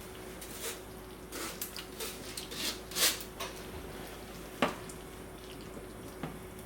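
Kitchen work at the sink: water splashing and dripping, with light clinks of dishes. There are a few short irregular splashes in the first half and one sharp clink about four and a half seconds in, over a faint steady hum.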